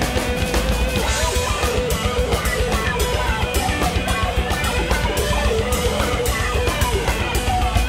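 Rock music with electric guitar and drums, a steady beat throughout.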